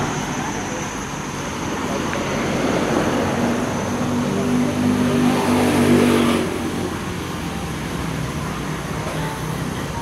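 Street traffic, with a motor vehicle's engine passing close and growing louder until about six seconds in, then fading into the traffic noise.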